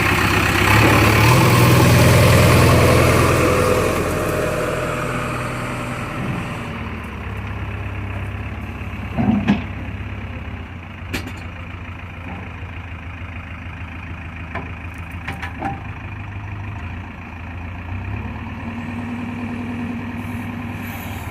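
Heavy diesel engine of earth-moving machinery, revved up loudly for the first few seconds, then dropping back to a steady lower run, with a few short metallic knocks along the way.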